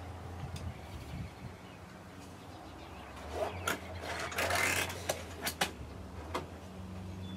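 Nylon zip ties being fastened by hand: sharp clicks, then a short ratcheting rasp as a tie is pulled tight about four seconds in, followed by a few more single clicks. A steady low hum runs underneath.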